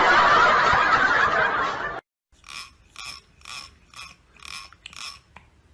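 A loud steady rushing noise that cuts off abruptly about two seconds in. After a brief gap, a finger is run across the teeth of a comb six times, about two strokes a second, each a short rattle.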